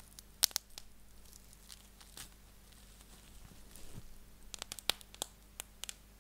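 Roll of plastic bubble wrap twisted and squeezed in the hands, its bubbles popping with sharp snaps. A few pops come about half a second in, one more near the middle, then a quick run of pops in the last two seconds, with soft plastic crinkling between.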